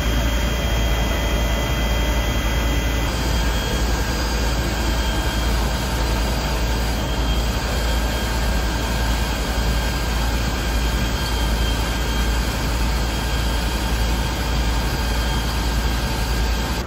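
Fire engine running, with a steady loud drone of engine and pump while its hoses are connected and supplying water.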